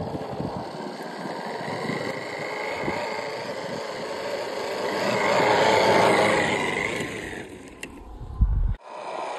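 A 1/8-scale 3D-printed RC model Land Rover Discovery 5 driving through snow, its motor and drivetrain running with a steady whine that swells as the model comes close, loudest about six seconds in. Near the end a low thump, then the sound cuts off abruptly.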